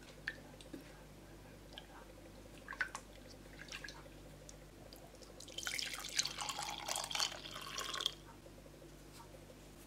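A few light clicks of a silicone spatula against a saucepan, then hot chocolate poured from the saucepan into a ceramic mug, splashing and trickling for about two and a half seconds.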